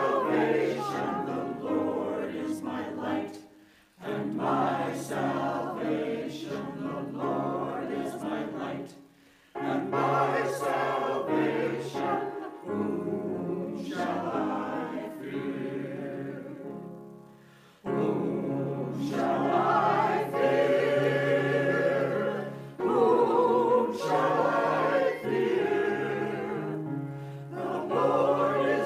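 A small women's choir singing, in phrases separated by brief near-silent pauses.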